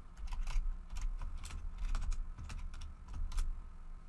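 Computer keyboard typing: an irregular run of quick keystroke clicks.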